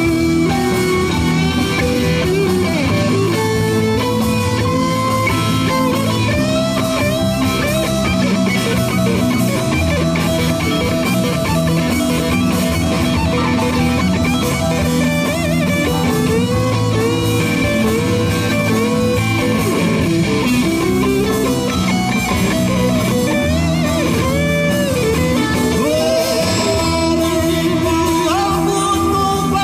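Live rock band playing an instrumental section: an electric guitar lead with bent, sliding notes over keyboards and drums.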